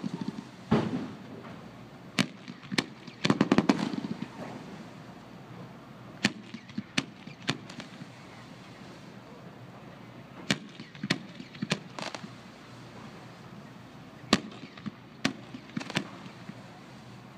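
Fireworks display: aerial shells bursting with sharp bangs. A quick run of crackling reports comes about three to four seconds in, then single bangs in small groups a second or so apart.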